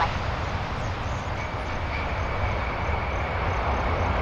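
Boeing 747 jet engines running as the airliner rolls out just after touchdown: a steady roar with a deep rumble, and a faint high whine that comes in about a second in.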